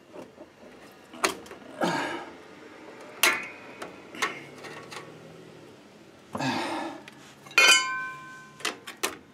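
Metal clinks and clanks of drum-brake hardware, the return springs and shoes, being worked off the backing plate with a spring hook tool. Several sharp clinks, two of which ring briefly, with rustling scrapes between them.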